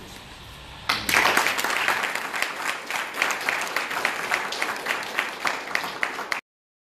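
Audience applauding, starting about a second in with dense, rapid clapping and stopping suddenly near the end.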